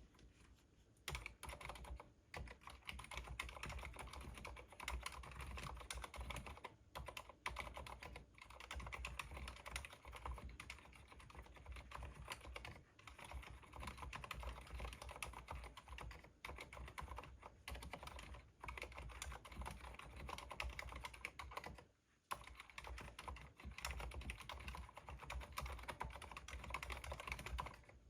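Stock, unmodded Cherry MX Board 2.0S wireless mechanical keyboard being typed on. A fast, continuous run of keystrokes starts about a second in, with brief pauses now and then, the longest about 22 seconds in.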